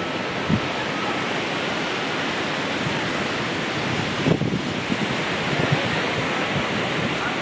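Wind buffeting the camera's microphone: a steady rushing noise with a couple of low thumps from gusts, about half a second in and again around four seconds in.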